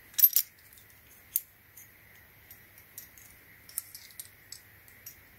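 Steel countersink drill bits with their stop collars clinking against one another as they are handled: a few sharp clinks just after the start, another about a second later, then scattered lighter ticks.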